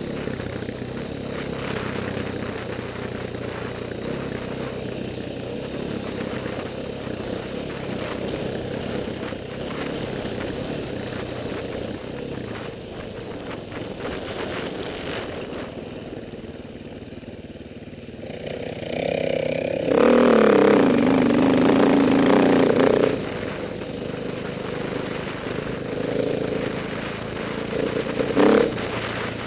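Dirt bike engine running under varying throttle while riding a forest trail. It eases off a little past halfway, then is opened up loud for about three seconds, with a short loud blip of throttle near the end.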